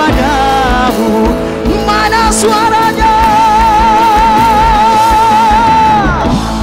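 Live rock band playing, with a male singer holding one long note with vibrato from about two seconds in and sliding down off it near the end, over drums and electric guitar.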